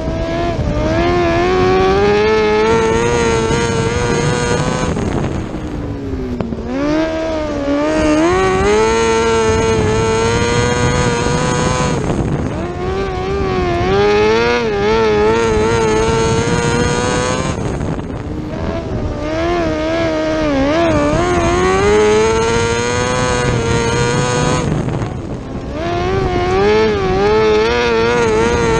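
A 600cc micro sprint car's motorcycle engine at racing speed, heard from the cockpit. The engine note climbs as the car accelerates, then drops sharply as the driver lifts off, about every six seconds, lap after lap around a short dirt oval.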